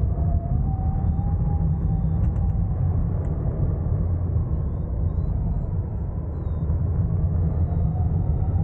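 Airflow over a hang glider in flight, buffeting a wing-mounted camera's microphone as a steady low wind rumble. A faint whistle wavers up and down in pitch over it.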